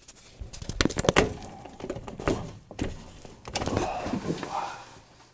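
Aprilaire steam humidifier canister being tugged and worked loose in its housing: irregular knocks, clicks and scraping, with a cluster of sharp knocks about a second in. The canister is stuck tight.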